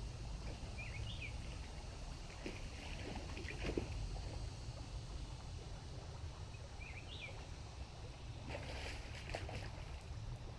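Water sloshing and splashing in a shallow stream as a cast net is worked through it. A steady low rumble runs underneath, and a short splash comes near the end. Two brief high chirps are heard, about a second in and again about seven seconds in.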